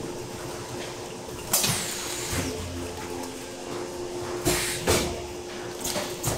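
Automatic food packaging machine running with a steady hum, with sudden sharp mechanical noises as it cycles, about a second and a half in and again near five seconds in. Vacuum-sealed plastic pouches of salmon steaks are handled as they come off its conveyor.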